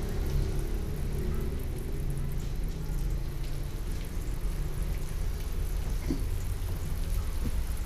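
Steady low rumble of a gas wok burner running under a large steel wok, with a faint sizzle of a little garlic and onion frying in oil and a few faint pops.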